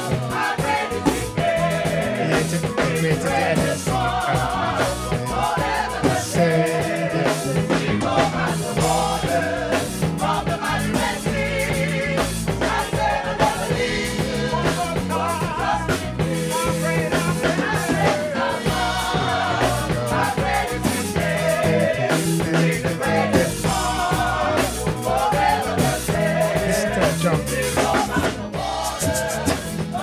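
Gospel choir singing with a live band, drum kit and bass keeping a steady beat in a reggae-tinged groove.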